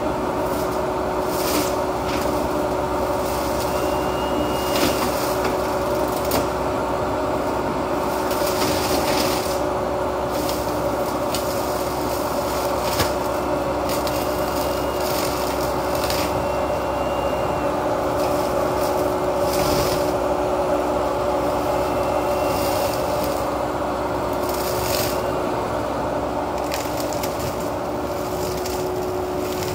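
Menzi Muck spider excavator running steadily at constant engine speed, driving a flail mower head that chops and shreds vegetation in irregular rasping hits.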